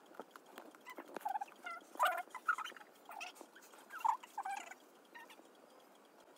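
Notebook pages and paper sheets being handled and flipped: scattered rustles and light clicks, mixed with several short, high-pitched squeaky sounds between about one and five seconds in.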